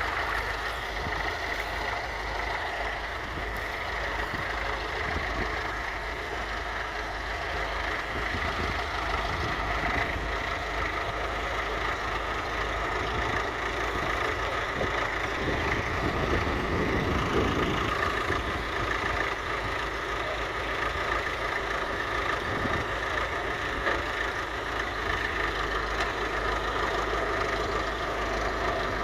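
1959 Massey Ferguson 35's 2.3-litre four-cylinder diesel engine running steadily while working with a mounted two-furrow plough, with a brief louder swell about halfway through.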